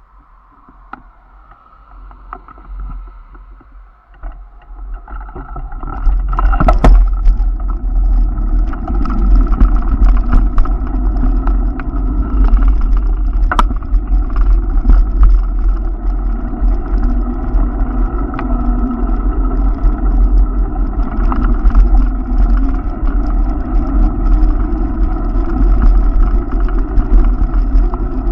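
Wind buffeting the microphone of a camera moving along a bike lane, with road and tyre rumble. It is faint at first, then rises sharply about six seconds in as the camera picks up speed, and stays a loud, steady rush with a few sharp knocks.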